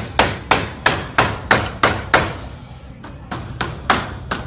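Hammer blows on the wooden frame of a wire-mesh door, about three a second, with a short break about two and a half seconds in before the strokes start again.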